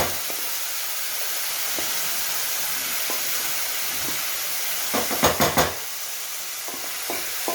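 Steady sizzle of a coarse dal mixture shallow-frying in oil in a pan. About five seconds in comes a short run of clattering knocks.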